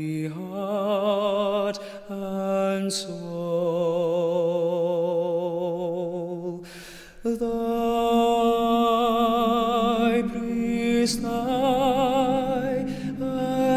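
Background music: slow, long held notes with vibrato, each lasting one to four seconds, with short breaks between phrases.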